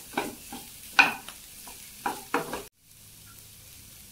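A spatula stirring boiled rice ada and chana dal in ghee in a non-stick pan: a run of irregular scrapes against the pan, the loudest about a second in. It cuts off abruptly after about two and a half seconds, leaving only a faint steady hiss.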